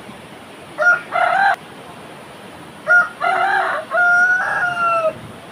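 Rooster crowing twice, loud: a short, clipped crow about a second in, then a full crow of several notes from about three seconds in that ends on a long falling note.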